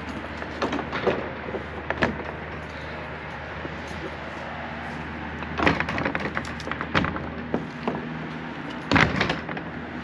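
A hanging metal chain and a wooden board door being handled: scattered clinks, knocks and creaks of wood, loudest about six and nine seconds in, over a steady low background hum.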